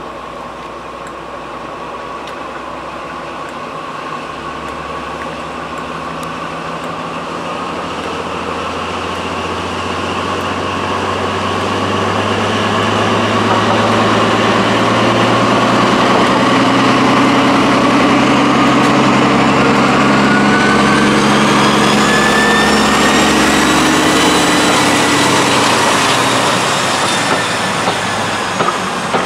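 Class 52 'Western' diesel-hydraulic locomotive D1015, with twin Maybach diesel engines, pulling a train of coaches out and passing close by. The engine note swells over the first half, a whine rises in pitch past the middle, and the sound fades with a few wheel clicks near the end.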